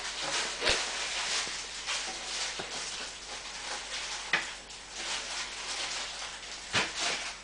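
Thin stream of tap water running and splashing into a kitchen sink, with three sharper splashes or knocks as a kitten noses and paws at the stream.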